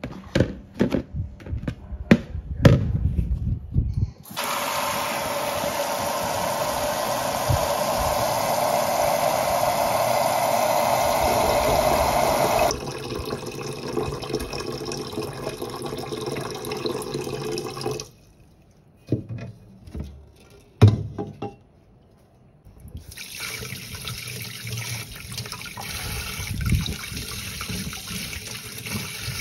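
Kitchen tap running water into a large nonstick cooking pot, filling it, after a few knocks from a plastic meat tray being handled. Later the tap runs again as vegetables are rubbed and rinsed by hand in a plastic bowl.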